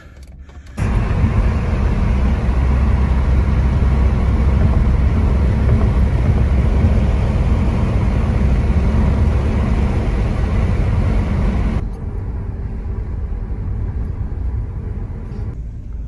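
Car driving at speed, steady road and engine rumble heard from inside the cabin. The noise drops suddenly to a lower level near the end.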